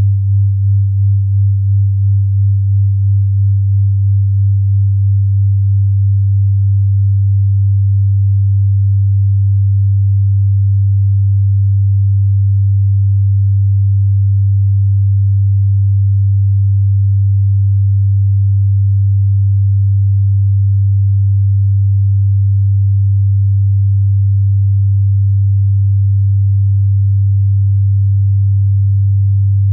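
Low electronic sine tones sounding together as a deep, steady hum. At first the loudness pulses in a slow beat about twice a second, which evens out after about five seconds into a steady tone.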